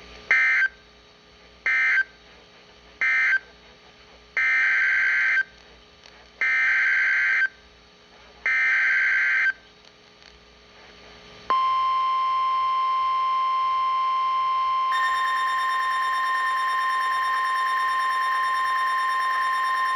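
Emergency Alert System data bursts from a weather-radio broadcast: three short, buzzy end-of-message bursts, then three longer SAME header bursts about two seconds apart. These are followed by the steady National Weather Service 1050 Hz warning alarm tone, with a second, higher tone joining it partway through, marking the start of a new warning.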